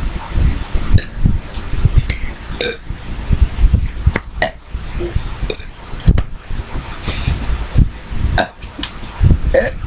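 Girls belching repeatedly, one low burp after another, from the carbonated gas of the Sprite they have chugged.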